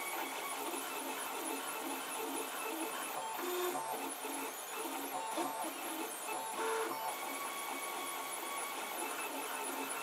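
Protomaker Black Sprint 3D printer running a slow print, its stepper motors whirring in short notes that keep changing pitch as the hotend makes small moves over the parts.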